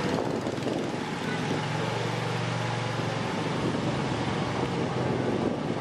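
An engine running steadily, with wind noise on the microphone.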